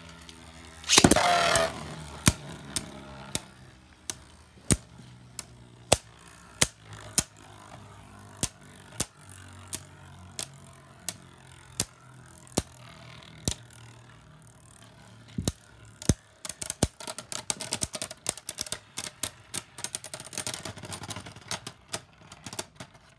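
Beyblade Burst spinning tops battling in a plastic stadium. A ripcord launcher zips about a second in, then the two tops clack together again and again, roughly every half second to a second. From about two-thirds of the way through, a rapid rattling clatter as the losing top wobbles and knocks against the other and the stadium floor.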